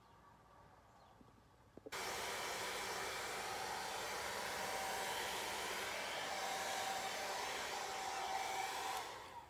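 Handheld hair dryer switched on about two seconds in, blowing a steady rush of air with a faint motor whine under it, then switched off near the end and trailing away.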